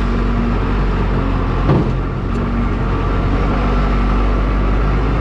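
Diesel engine of a Case backhoe loader running steadily, heard from the operator's seat, with a single clunk a little under two seconds in.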